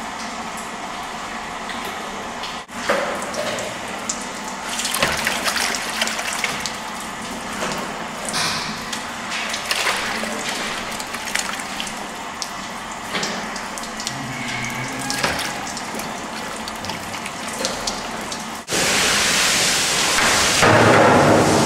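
Wet fresh cheese curd and whey scooped from a steel vat with a plastic bowl and tipped into perforated metal moulds: splashing, sloshing and dripping, with small clatters of the bowl against the moulds. Near the end a loud steady rushing noise takes over.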